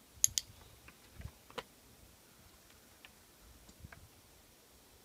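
A dog-training clicker clicked once, a sharp double click about a quarter second in, marking the dog's chin touch for a treat; a few faint ticks and taps follow.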